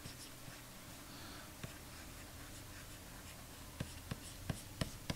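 Faint scratching of a graphics-tablet pen drawing strokes on the tablet surface, with a few light ticks of the pen tip in the last second and a half.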